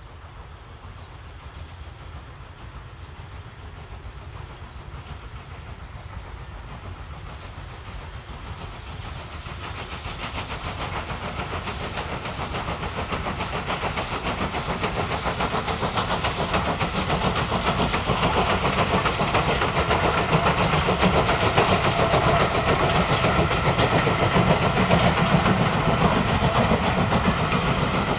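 LSWR M7 0-4-4 tank steam locomotive hauling a passenger train, its working exhaust growing steadily louder over about twenty seconds as it approaches. Near the end the coaches pass close by on the rails.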